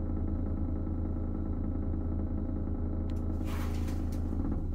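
Bathroom exhaust fan running, its vibration carried into the SMC plastic ceiling and access lid as a steady low drone with many overtones. The cause is spare tiles left resting on the plastic lid. About three seconds in a click and a rustle come as a hand presses on the ceiling panel, and the drone drops away at the very end.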